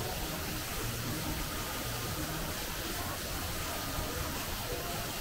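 Shopping mall ambience: a steady wash of noise in a large indoor hall with faint, indistinct voices.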